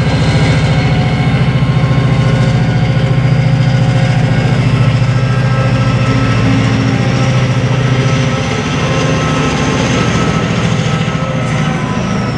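TransPennine Express Class 68 diesel locomotive's engine running heavily as it moves slowly past, with a high whine that slowly rises and then starts to fall near the end.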